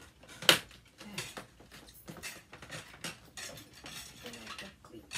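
Hard plastic dollhouse parts of a Frozen 2 Arendelle Castle playset knocking and clicking as they are handled and fitted together. One sharp loud click comes about half a second in, followed by a string of lighter taps and clatters.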